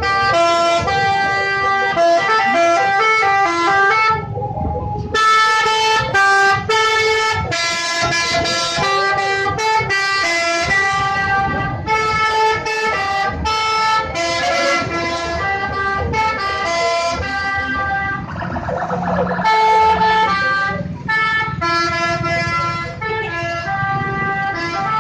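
Bus 'telolet' horn, a multi-tone musical air horn, playing a quick melody of changing notes over and over, with a couple of short breaks.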